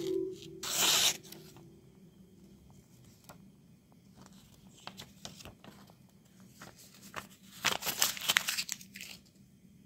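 A freshly sharpened kitchen knife slicing through a sheet of paper about a second in, followed by faint paper rustles and small ticks. Near the end, the cut paper is crumpled by hand in a burst of crackling.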